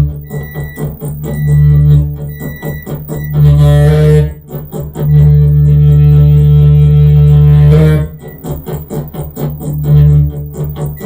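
Experimental electronic noise music from a no-input mixer and microwave-oven interference: a heavy low buzzing drone that cuts in and out in blocks, the longest held for about three seconds in the middle, over fast rhythmic clicking. Short high beeps repeat during the first three seconds.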